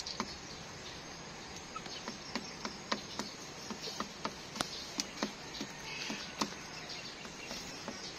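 A barred hen pecking feed off a wooden board: sharp, irregular taps of the beak on the wood, roughly two or three a second, over a steady background hiss.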